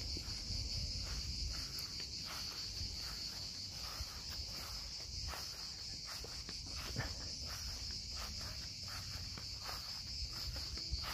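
A steady, high-pitched buzzing chorus of insects, unbroken throughout, with soft footsteps on grass faintly beneath it.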